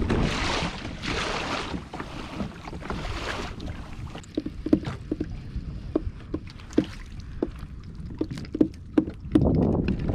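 Water rushing and splashing along the hull of a moving kayak in choppy sea, in swells about once a second. From about four seconds in, this gives way to a string of sharp, irregular clicks and knocks, about two a second, with a rush of water again near the end.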